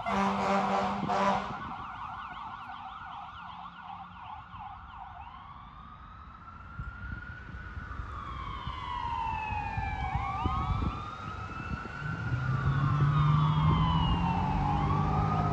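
Ambulance siren heading away. It opens with a brief horn over a fast yelp, then switches to a slow rising and falling wail that fades and then swells again. A low steady drone comes in about twelve seconds in.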